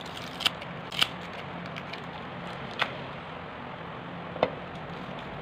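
Four sharp clicks and taps from an opened Oppo A3s smartphone and its parts being handled during battery removal, over a steady low hum.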